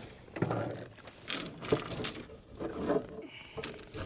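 Handling noises as a freshly caught crappie is unhooked and laid on the boat deck: a handful of irregular knocks, rustles and clicks.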